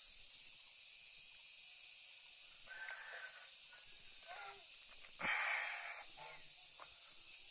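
Quiet rural outdoor background with a steady high insect-like tone, a few faint bird calls, and a short rustle about five seconds in.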